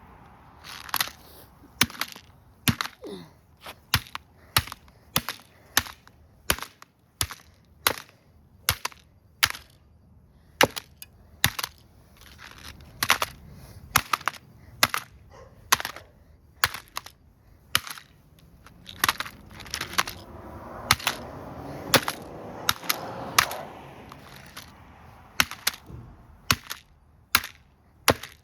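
Repeated sharp hits smashing a toy remote control car, a steady run of about one to two blows a second.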